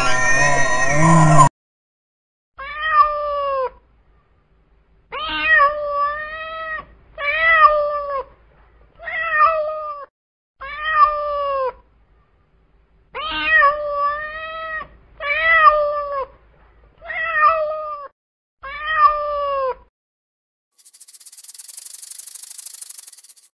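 Domestic cat meowing over and over: about ten drawn-out meows a second or two apart, each falling in pitch at its end. Music cuts off just before the first meow, and a faint high hiss follows the last one near the end.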